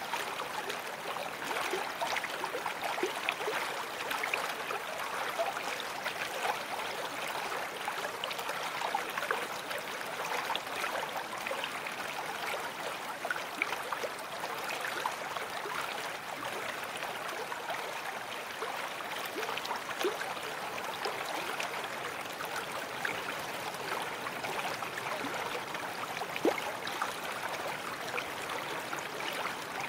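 Babbling brook: a steady rush of running water dotted with many small gurgles and splashes.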